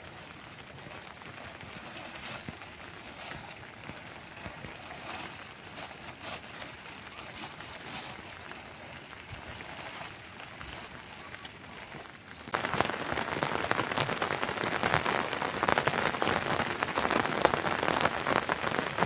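Rain falling, a light patter of scattered drops that about twelve seconds in turns suddenly louder and denser, a steady heavy hiss of drops.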